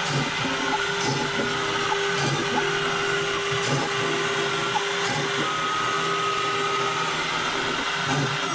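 CNC router spindle running steadily at high speed while milling holding holes in 4 mm aircraft plywood, with a constant motor tone.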